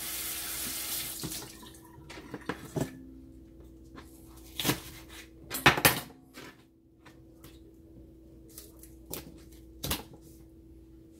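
Kitchen faucet running water over green onions in a stainless steel sink for about the first second and a half, then shut off. Scattered knocks and taps follow as the wet onions are handled and set down on a plastic cutting board, the loudest about six seconds in, over a steady faint hum.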